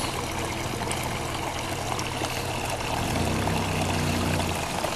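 Mitsubishi Pajero V6 engine running at low speed as the 4x4 crawls over rough, muddy ground, its note growing louder about three seconds in, over a steady hiss.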